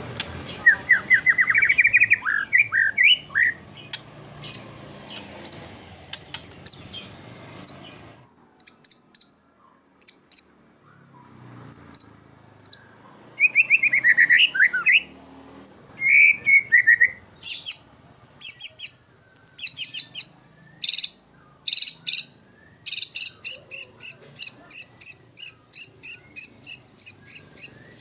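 White-rumped shama singing a varied song of sweeping trills, sharp chips and whistled phrases, a song stuffed with imitated calls (isian). Near the end it breaks into a fast, evenly repeated run of high notes, several a second.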